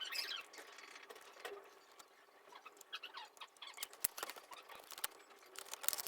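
Scattered light clicks and taps, with a few small squeaks, of a laptop's plastic case and parts being handled and fitted back together during reassembly.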